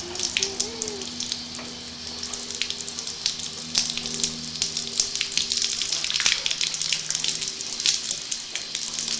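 Water spraying from a garden hose spray nozzle, a steady hiss with irregular spattering as the jet hits a horse's muzzle and lips.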